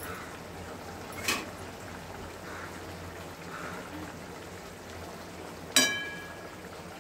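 Fish curry simmering in a metal kadhai with a steady bubbling hiss. There is a light knock about a second in, and near the end a metal spatula strikes the pan with a sharp clang that rings briefly.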